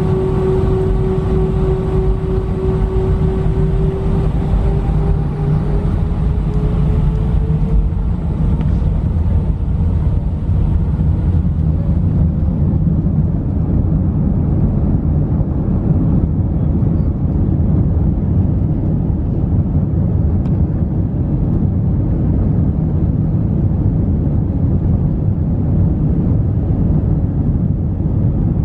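Airbus A320's jet engines running, heard from inside the cabin as a steady low rumble. A whine rises slightly and fades out over the first eight seconds.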